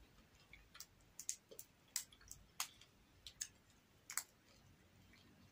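Faint, irregular clicks and small snaps of seafood shell being picked apart by hand to get the meat out, about a dozen over a few seconds.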